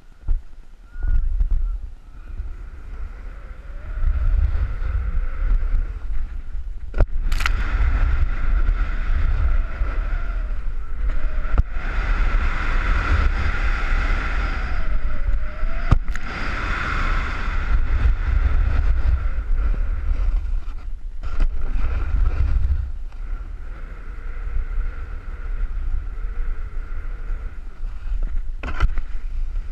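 Wind buffeting a head-mounted GoPro's microphone while snowboarding downhill, with the board scraping over the snow. A few sharp knocks stand out, about seven seconds in, near twelve and sixteen seconds, and near the end.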